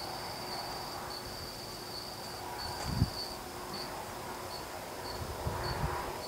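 Night insects trilling in a steady high-pitched tone that breaks into short chirps in the second half, with one brief thump about halfway through.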